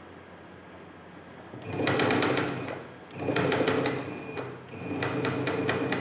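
Singer electric sewing machine running in three bursts, starting about a third of the way in, with short pauses between them; its needle mechanism clatters rapidly. This is a test run showing that the machine runs again after its pedal fault.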